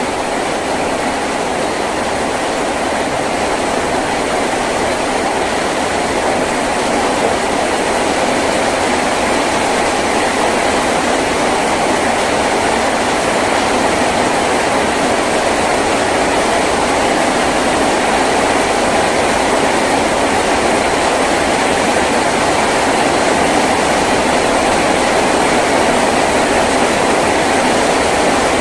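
Heavy rain falling on a tin roof: a steady, dense wash of noise that slowly grows a little louder.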